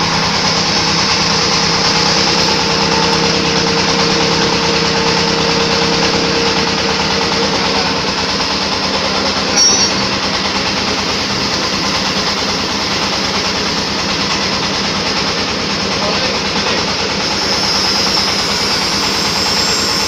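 Stainless steel sugar grinding mill running steadily, belt-driven, grinding granulated sugar fed into its hopper: a loud even rush of machine noise with a steady hum, and one brief knock about ten seconds in.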